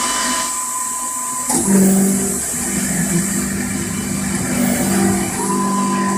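BF20 CNC milling machine running with a steady high whine; about one and a half seconds in the whine stops and a lower steady hum takes over, and the high whine comes back near the end.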